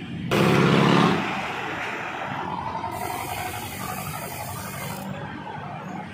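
Street traffic and road noise heard from a moving bicycle. A loud burst of noise starts about a third of a second in and lasts under a second, then the noise settles to a steady level.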